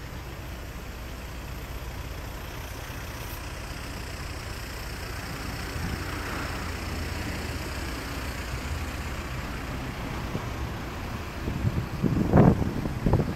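Steady rumble of road traffic, swelling gently as a vehicle passes around the middle. Near the end, a few loud low buffets hit the microphone.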